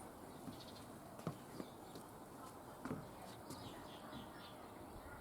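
Faint outdoor background with small birds chirping here and there and a few soft knocks.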